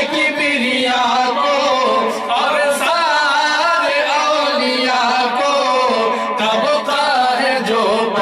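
A man chanting an Urdu devotional poem (kalam) in a melodic sung style, holding long notes that waver in pitch, with short pauses between phrases.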